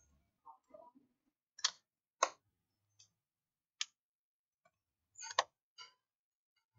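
Sharp plastic clicks as hands press down around the edge of a Samsung Galaxy Tab A7 Lite's open frame during reassembly: about five irregular clicks, two close together early on and another pair near the end.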